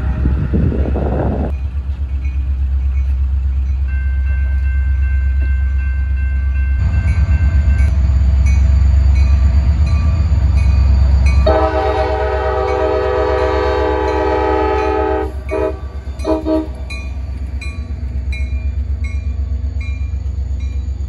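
Diesel-hauled train passing close by, its engine giving a steady low rumble. The locomotive's multi-note air horn sounds one long blast about halfway through, then two short blasts.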